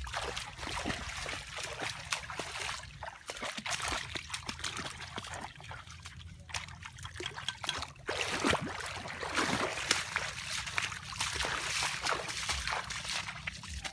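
Shallow stream water trickling and splashing, with irregular sloshing footsteps of people wading through it and brushing through wet vegetation.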